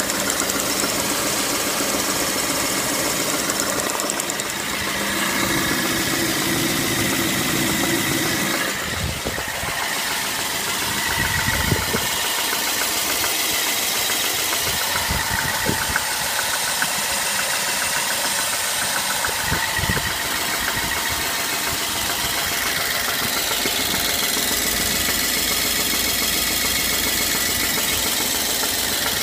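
BMW E90 engine idling with an unidentified knock in it, the fault the owner is trying to trace. A few heavier low thumps stand out around the middle.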